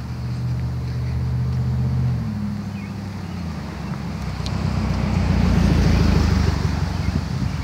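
Motor vehicle running on the street, a steady low engine hum, then a car passing close by, its noise swelling to a peak about six seconds in and fading.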